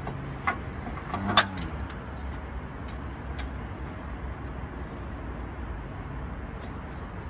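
A few light metal clicks and taps as bolts are fitted by hand under a car's battery tray bracket, over a steady low rumble.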